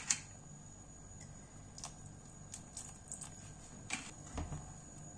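A few faint, scattered clicks over a low steady hum, with a sharper click and a soft thump about four seconds in: small kitchen handling sounds at a stovetop pot of porridge that is just coming to the boil.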